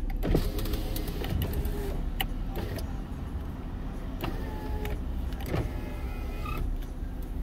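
Steady low rumble of a car idling, heard from inside its cabin, with scattered light clicks.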